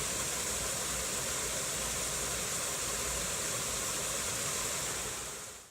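A steady, even hiss of noise that fades out near the end.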